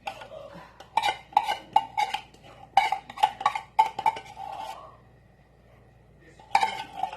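A utensil knocking and clinking against a metal cooking pan, probably while stirring the pan of condensed milk, butter and sugar. There is a quick run of about ten ringing clinks from about a second in until past four seconds, then another short burst near the end.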